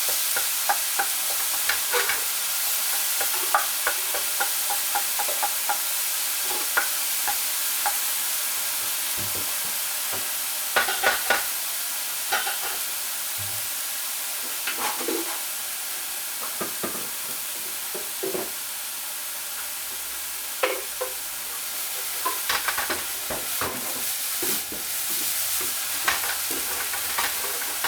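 Chicken pieces sizzling steadily as they fry in a hot pan, with the cooking utensil scraping and clicking against the pan as they are stirred, in clusters of quick knocks.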